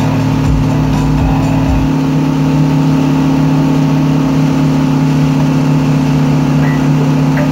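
Wakesurf boat's inboard engine running at a steady, even drone under load, over the rush of its wake and spray.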